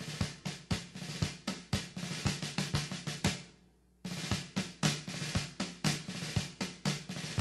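Snare-drum passage in a military march song: a run of sharp drum strokes that fades out about three and a half seconds in, then starts again abruptly half a second later.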